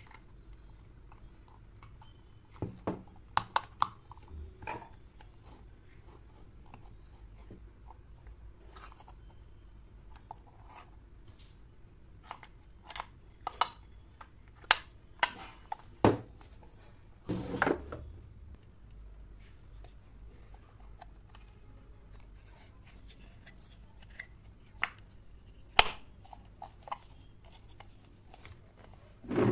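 Small clicks and light knocks from handling a miniature dollhouse china cabinet, its tiny hinged doors and drawers being opened and shut by hand, scattered and irregular, with a short scraping rustle a little past halfway.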